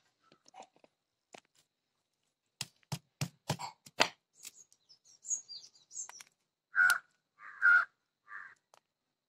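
A hand-held stone knocks about six times in quick succession, cracking fire-roasted cashew shells on a concrete slab. After that a crow caws three or four times near the end, louder than the knocks.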